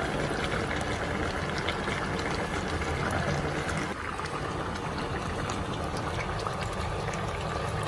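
Coconut-milk soup boiling in a stainless steel pot, a steady bubbling.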